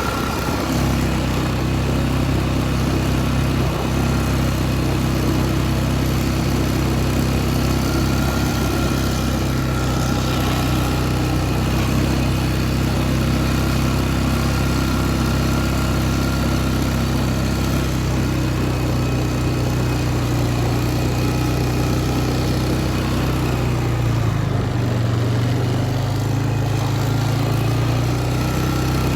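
Four-wheeler (ATV) engine running steadily while being ridden, its note shifting slightly about three-quarters of the way through.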